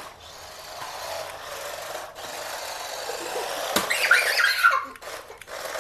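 Small electric RC drift car (a YUAN PLAN Skyline GT-R replica, four-wheel drive on hard racing slicks) whirring as it does donuts, its tyres sliding on the hardwood floor, with a single knock about four seconds in.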